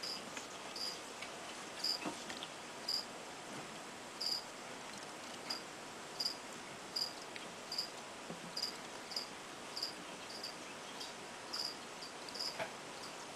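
A cricket chirping: short, high chirps repeating about one to two times a second at a slightly uneven pace, over a faint steady hiss.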